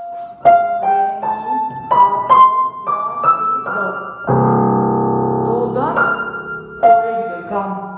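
Upright piano played by hand: single notes climbing step by step, then a loud low chord held for about a second and a half a little past the middle, followed by a quick upward run and more notes near the end.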